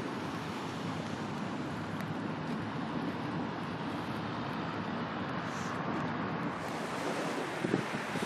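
Steady wash of sea waves with wind noise on the microphone, and a few short wind buffets near the end.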